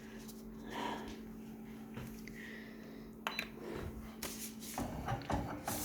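Photocopier running with a steady hum during a copy, with scattered clicks and knocks in the second half; the hum changes pitch about five seconds in.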